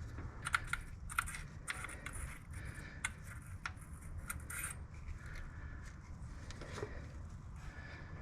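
Irregular light metallic clicks and rattles of hand tools and engine parts being handled, bunched in the first half and sparser later, over a steady low background hum.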